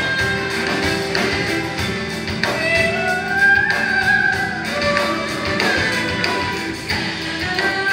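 Live band music: an electric violin plays a sliding melody over piano and drums.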